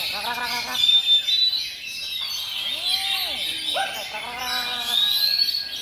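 Several oriental magpie-robins (kacer) singing at once, a dense mix of high whistles and chattering trills, with people's voices under it.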